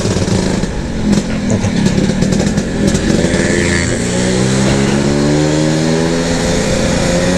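Modified classic Vespa two-stroke engine with a case-mounted ('intake tanam') intake, heard from the saddle while riding. Its revs climb steadily through the second half as the scooter accelerates.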